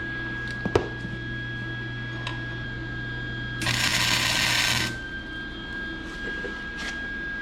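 A single short burst of electric arc welding crackle, a tack weld lasting just over a second in the middle, a poor tack that came out badly. A steady electrical hum runs underneath, with one click near the start.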